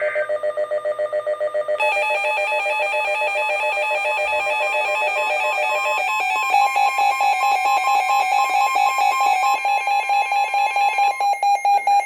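Weather radio's alert alarm for a severe thunderstorm warning: rapid electronic beeping whose pitch pattern changes about two seconds in and again about six seconds in.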